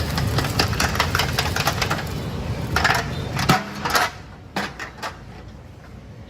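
Rapid metallic clatter and scraping of utensils working in a large cooking pot over a steady rumble. The rumble stops suddenly about halfway through, and a few separate clinks follow.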